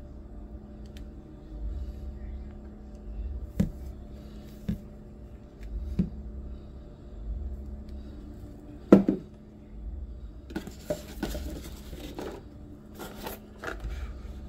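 Hands handling unboxing items, a plastic spool of braided line and a cardboard reel box: a few short knocks as things are set down or picked up, the loudest about nine seconds in, then scraping and rustling of the box near the end. A steady low hum runs underneath.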